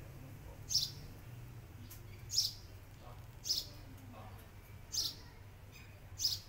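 A small bird chirping: five short, high single chirps, repeated about every second and a half, over a steady low background hum.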